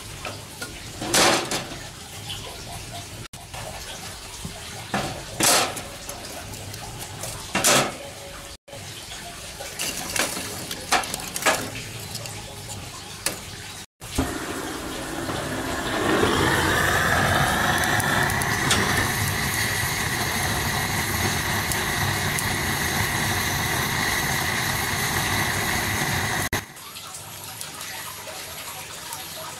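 A few sharp knocks, then a small motor whirring steadily, its pitch rising over about two seconds as it spins up and then holding, before it cuts off suddenly near the end.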